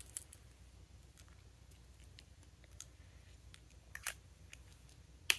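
Faint handling of a plastic fountain pen and its ink cartridges: quiet rustling with a few small sharp clicks, a couple about four seconds in and the sharpest one just before the end.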